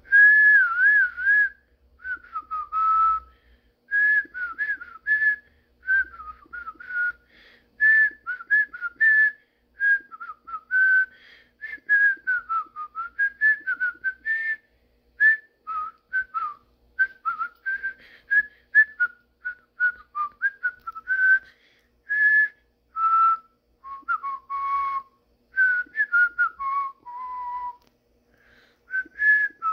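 A man whistling a tune through pursed lips: a string of short notes gliding up and down, in phrases with brief pauses. He is whistling to call his cat.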